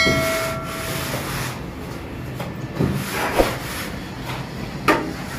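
A plasterer's long straightedge scraping and sliding across wet cement plaster on a wall, levelling the coat in rough strokes. The louder scrapes come about three seconds in and near the end. At the start a short chiming on-screen 'subscribe' sound effect rings and fades within about a second.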